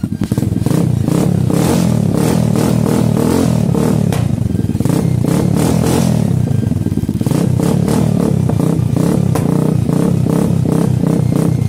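Pitbike engine running with its carburettor freshly cleaned and its idle mixture and idle speed adjusted, running smoothly. It gets louder just after the start and then holds steady.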